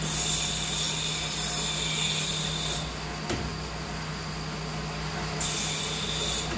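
A power tool running in two bursts with a high whine, about three seconds and then about a second near the end, with a click between, over a steady low hum.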